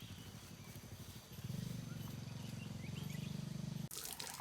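An Asian elephant's low rumble, a pulsing hum that swells about a second and a half in and cuts off sharply near the end.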